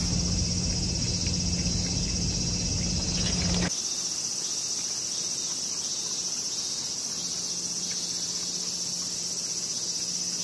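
Steady high-pitched chorus of insects chirring, with a low outdoor rumble beneath it that cuts off about four seconds in, leaving the insect chorus alone.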